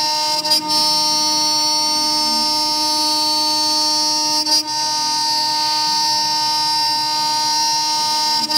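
CNC router's 2.2 kW spindle driving an end mill through 20 mm aluminium plate, milling a pocket: a steady high-pitched whine. It dips briefly about half a second in, again about four seconds later, and near the end.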